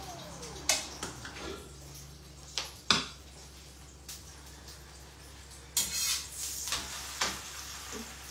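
Kitchen clatter of dishes and utensils being handled: scattered sharp clinks and knocks, the loudest about three seconds in and a cluster of them around six seconds.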